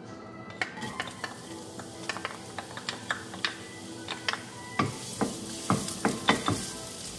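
A wooden spoon knocks and scrapes against a nonstick pan in a run of sharp clicks. From about five seconds in, chopped onion sizzles in hot oil, with louder knocks as the spoon stirs it.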